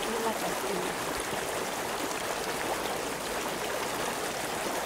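Small stream of water running steadily over a mossy bank, an even rushing and trickling.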